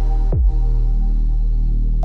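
Background electronic music: held synth chords over a deep, steady bass, with one deep drum hit that drops in pitch about a third of a second in.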